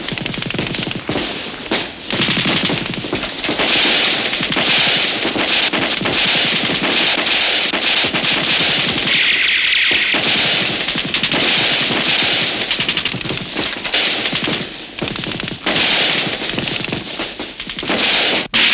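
Heavy, continuous gunfire: rapid shots in dense volleys, easing briefly a couple of times.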